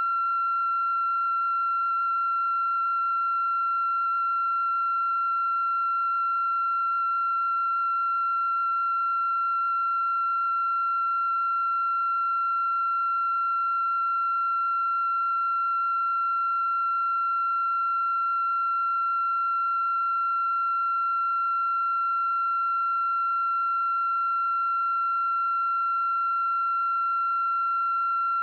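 A single steady, unbroken high-pitched electronic tone with fainter overtones, holding the same pitch and level throughout.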